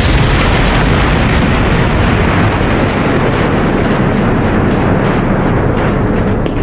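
Anime explosion sound effect: a loud, rumbling blast whose hiss slowly fades while the low rumble carries on.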